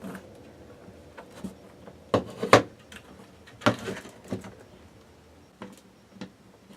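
Clicks and knocks of a camper's ceiling light fixture being handled and fitted back into place. There are about half a dozen sharp knocks, the loudest pair about two seconds in.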